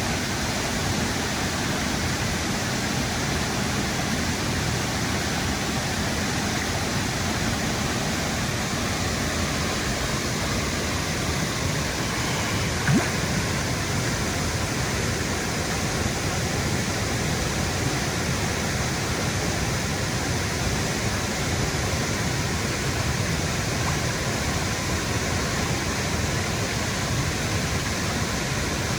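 A waterfall's steady rush of falling water, a constant even roar that never lets up. A single brief tap sounds about halfway through.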